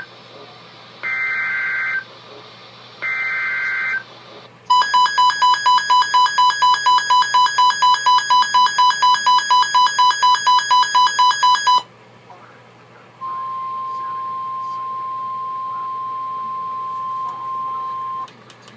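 Emergency Alert System signalling on a NOAA Weather Radio broadcast. Two one-second bursts of digital SAME header data come first. A rapid electronic beeping follows, about four beeps a second for some seven seconds. Then a steady single-pitch alert tone sounds for about five seconds, announcing a severe thunderstorm warning.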